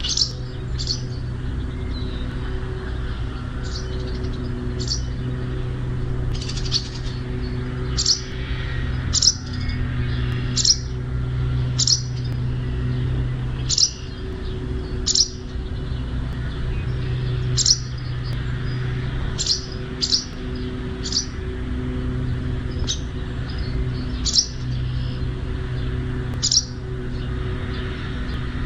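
A small songbird giving sharp single chirps, repeated about once every second or so, over a steady low hum.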